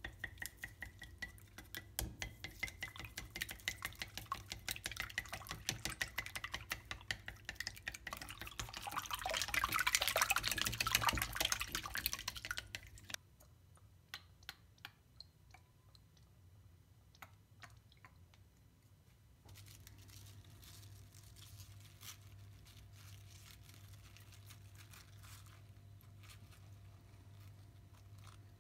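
Wooden chopsticks whisking eggs in a glass bowl: rapid clicking against the glass, building to its fastest and loudest just before it stops abruptly about 13 s in. After that come a few light ticks as oil is poured into a frying pan. From about two-thirds of the way through, a steady low hum runs under scattered soft knocks.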